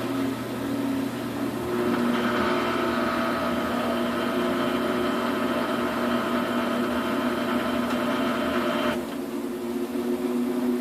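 Samsung front-loading washing machine in its spin cycle with a load of duvets: the motor and drum give a steady hum with a whine. About nine seconds in, the higher part of the whine and a low hum drop away while the lower tones go on.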